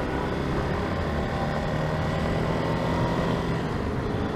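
Yamaha Ténéré 700's parallel-twin engine running at a steady cruise, its even drone over a constant low rumble of wind and road noise.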